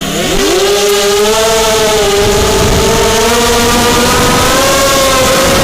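Brushless motors of a 240-size FPV quadcopter (Cobra CM2204 2300KV on 4S, 5045 bullnose props) spinning up within the first half second, then running with a steady whine that wavers slightly in pitch with throttle, over a rushing noise.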